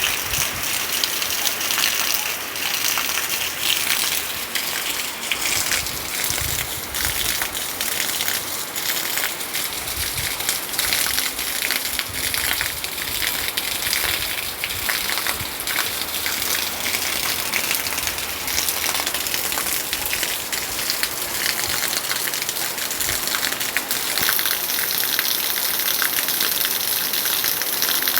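Heavy rain pouring down, a steady, dense hiss full of the patter of drops striking surfaces.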